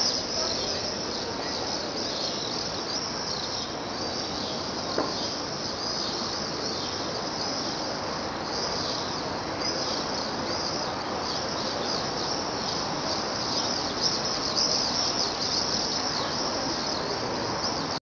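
A flock of swifts screaming: many short, high calls overlapping in a continuous chorus.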